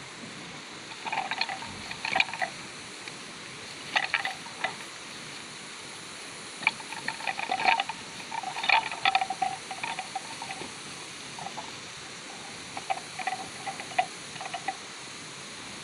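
Young water buffalo butting heads, their horns clacking together in irregular bursts of sharp knocks, over a steady hiss.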